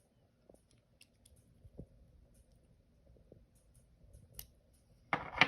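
Faint, scattered small clicks and taps from handling the sight's small parts and tools. Near the end comes a brief, louder rustling burst.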